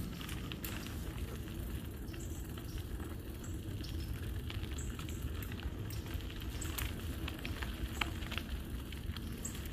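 Wind rumbling on the microphone, with a scatter of crackles and clicks from tyres rolling over a sandy dirt road.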